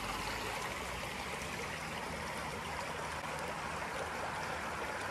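A creek's water flowing, a steady rushing.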